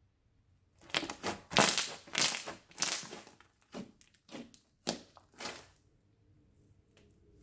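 Slime being worked by hand: a quick series of about a dozen short, sharp squishes and pops over about five seconds, the loudest near the start.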